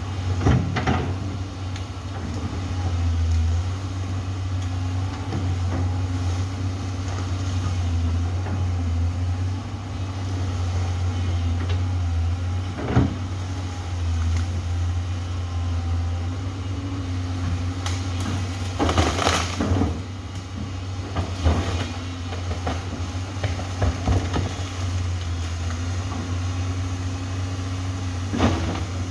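Amphibious excavator's diesel engine running steadily, with occasional knocks and clanks. The loudest cluster comes about two-thirds of the way through.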